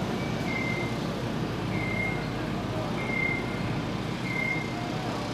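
Backup alarm of construction equipment beeping at an even pace, four high beeps, over a steady low rumble of machinery.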